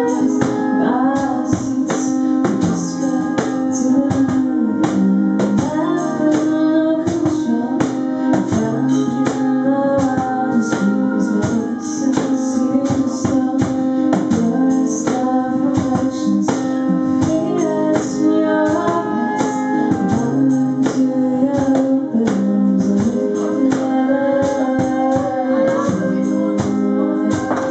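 A woman singing a song to her own strummed acoustic guitar, the strumming keeping a steady rhythm under the vocal line.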